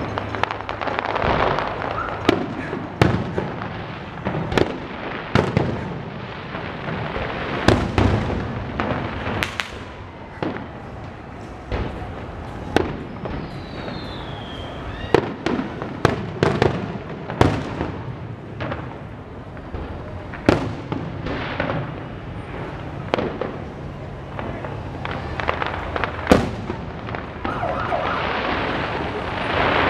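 Aerial firework shells bursting in a fireworks show: a long run of sharp, irregular booms, some close together and some a second or more apart, each with a short echo.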